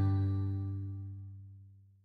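Title-card intro music ending on a held chord that dies away and fades out about three-quarters of the way through.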